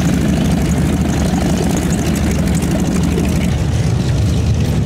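Radial engine of a North American T-6 Texan trainer running at low power, propeller turning, with a steady low rumble.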